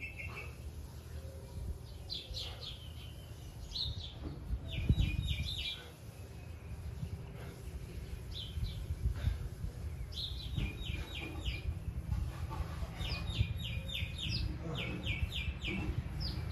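Songbirds chirping in quick runs of short repeated notes, several times over, above a steady low rumble, with a low thump about five seconds in.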